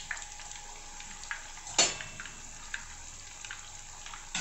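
Parotta frying in hot oil in a pan: a steady sizzle with scattered small pops and crackles, and one sharp click a little before the middle.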